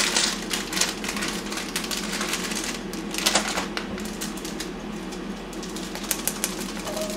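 Plastic instant-ramen packets crinkling and rustling as they are handled and torn open, a run of small irregular crackles, stronger about three seconds in, over a steady low hum.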